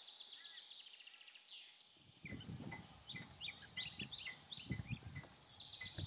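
Wild birds chirping and twittering in open bush, faint at first and louder from about two seconds in, with a low, uneven rumble underneath.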